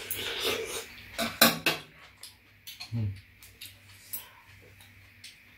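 Metal spoons and chopsticks clinking and scraping against soup bowls as two people eat dumpling soup: a series of short clinks, the sharpest about a second and a half in.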